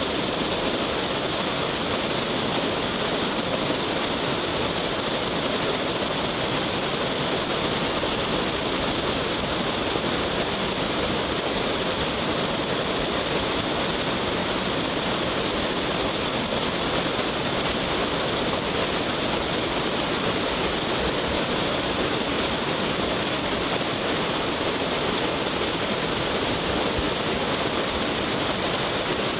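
Kurumi Ōtaki waterfall falling in a steady, unbroken rush of water, running high with rainwater.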